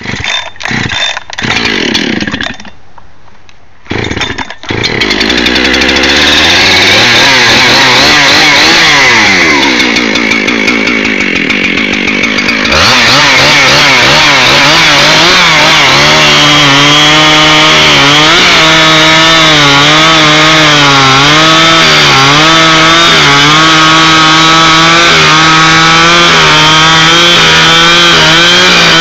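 Husqvarna 365 Special two-stroke chainsaw started with a few short bursts, then revved up and down, going to full throttle about 13 seconds in. For the rest it runs flat out cutting wood, its note wavering as the chain bites under load.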